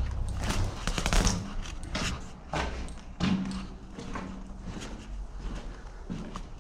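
Footsteps: a run of irregular scuffs and knocks, with wind rumbling on the microphone in the first second or so.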